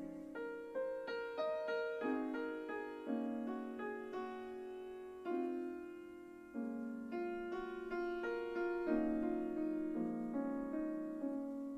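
Slow, gentle background piano music: single notes and soft chords struck one after another and left to ring.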